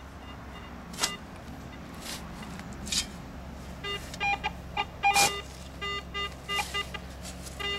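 Shovel blade striking into compacted turf a few times, then from about halfway a metal detector sounding in short repeated beeps of several pitches as it picks up the target and the metal shovel in the hole.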